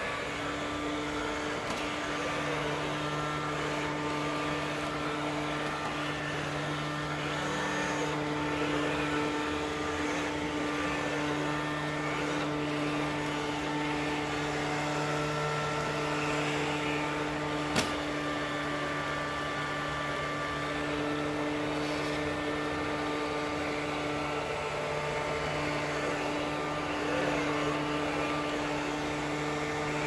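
Philips SmartPro Active robot vacuum cleaner running with its suction fan on the raised power setting: a steady whirr with a hum, slightly louder than its normal setting. A single sharp click about two-thirds of the way through.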